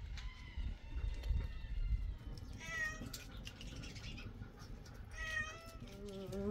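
Domestic cat meowing twice, two short calls a few seconds apart.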